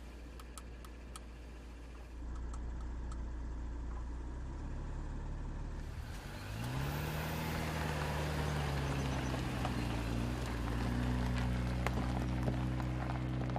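Audi SQ5's V6 engine running under load as the SUV drives: a steady low drone, then about six seconds in the engine note rises and holds higher as it accelerates, with a rushing noise building alongside it.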